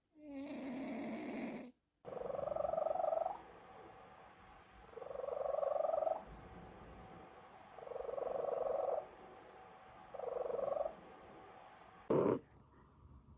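Sleeping cats snoring in short back-to-back clips. After a brief first snore and a cut, a cat snores four times, each snore about a second long and about two and a half seconds apart. A short sharp sound comes near the end.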